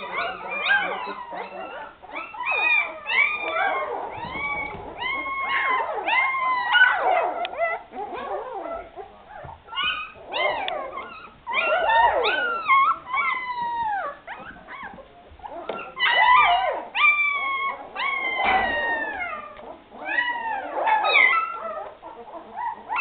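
A litter of young Afghan Hound puppies whining and squealing, many high, falling cries overlapping one another, with a couple of short lulls.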